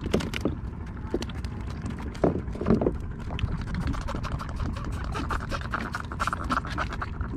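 Freshly caught fish flopping in a plastic kayak hull, their tails slapping the plastic in quick, irregular taps, over a steady low rumble of wind on the microphone.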